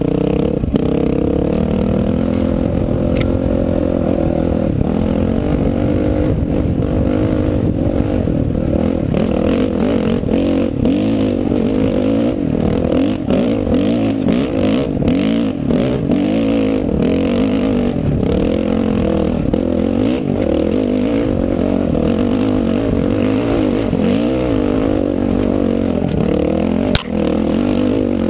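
2006 Honda CRF450R's single-cylinder four-stroke engine pulling hard uphill, its revs rising and falling constantly with the throttle, heard close up from on the bike. Knocks and clatter from the rocky trail run through it.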